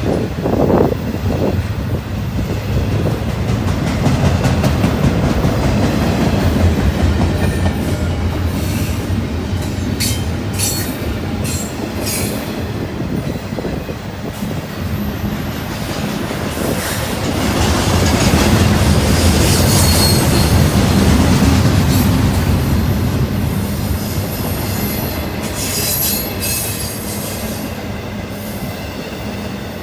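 Freight train cars rolling past, the wheels rumbling steadily and clacking over the rails, with short high wheel squeals now and then. It grows louder about two-thirds of the way through.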